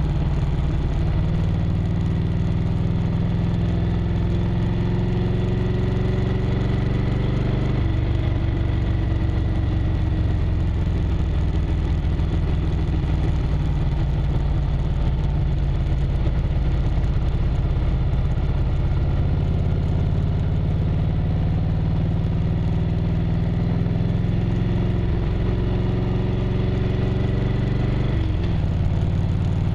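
1998 Harley-Davidson Road Glide's Evolution V-twin engine running under way, heard from a bike mount. Its pitch climbs for several seconds and drops abruptly about eight seconds in, then climbs and drops again near the end.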